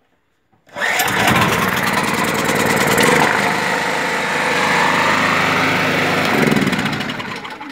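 Small four-stroke petrol generator engine starting on a pull of its recoil starter, catching at once about a second in and running steadily at its governed speed, set to hold 3000 rpm for 50 Hz output. It stops and dies away near the end.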